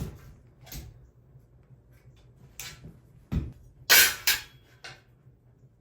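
A handful of separate clanks and knocks of hard metal objects being handled and set down. The loudest pair comes about four seconds in.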